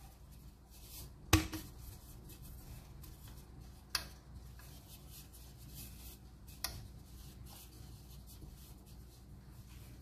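Kitchenware being handled on a counter: one sharp knock about a second in, two lighter clicks later, and faint rubbing and scraping between.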